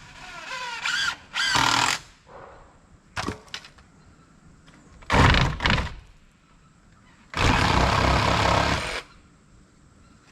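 Geese honking in the first two seconds, then a few sharp knocks around the middle, and a loud, even, noisy burst lasting about a second and a half near the end.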